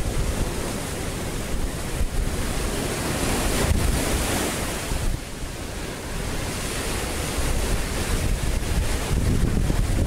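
Ocean surf breaking and washing ashore, a steady rushing hiss that swells about four seconds in, with wind buffeting the microphone in a low rumble.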